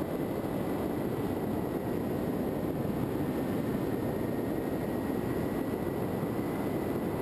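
Steady rush of wind and propeller noise picked up by the onboard camera of a Skywalker FPV model plane in flight, with a faint steady high whine running through it.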